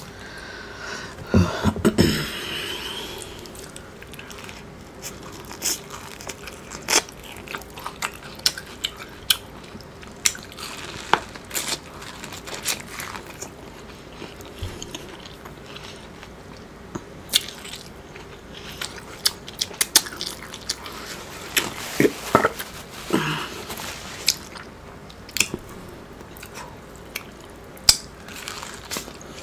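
Close-miked eating of Mexican street corn on the cob: repeated crisp bites into the kernels, with chewing and wet mouth clicks at irregular intervals.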